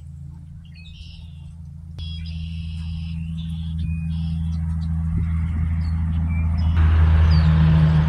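A low, steady engine hum grows louder and louder, with a rushing hiss joining it near the end. Birds chirp over it.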